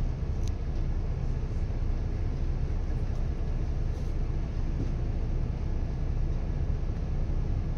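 Toei city bus engine idling with a steady low rumble, heard from inside the cabin while the bus stands still.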